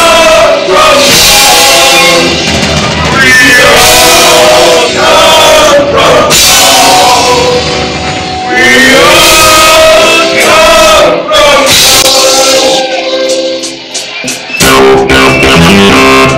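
Live rock band playing loud, with a male lead singer singing over the band. About thirteen seconds in, the music thins out briefly, then a new section starts with steady, evenly held notes.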